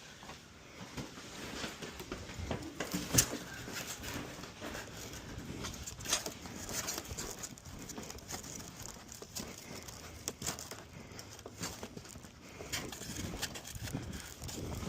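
Irregular knocks, thumps and rustling, as of boxes and junk being handled and walked about, with a sharp knock about three seconds in.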